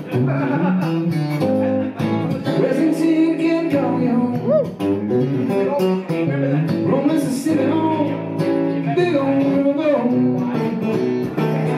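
Electric guitar played live, a lead passage of single notes and chords with bent notes.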